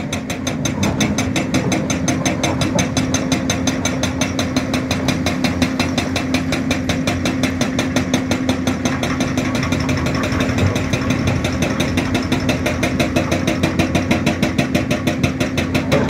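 Heavy diesel engines of a Hyundai crawler excavator and a loaded tipper truck running steadily at a quarry, a fast, even pulse in the engine sound throughout.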